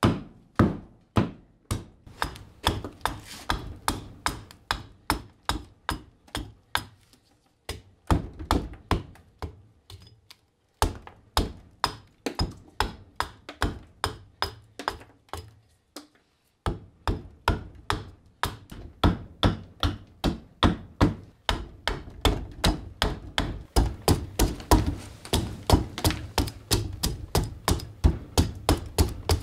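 Hatchet hewing a green walnut blank on a wooden chopping block: a steady series of sharp chopping strikes, about two a second, with a few short pauses, coming a little faster near the end.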